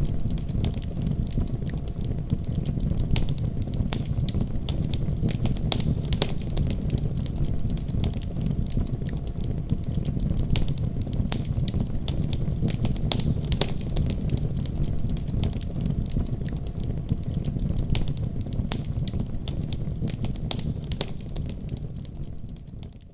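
Wood fire burning in a fireplace: a steady low rumble of flames with frequent sharp crackles and pops, fading out near the end.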